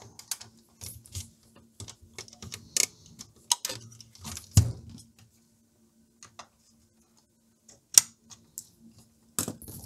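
Irregular clicks, taps and knocks of hands prying at the plastic clips and sheet-metal chassis of a Pioneer A-119 amplifier while its front panel is worked loose, with a short lull after the middle and a sharp click near the end.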